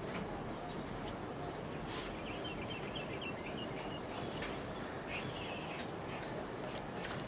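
Outdoor background noise with a faint steady high tone, and small birds chirping in two short runs in the middle.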